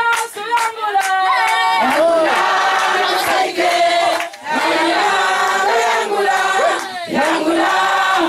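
Church choir singing together, several voices holding sung notes, with one short break about four seconds in.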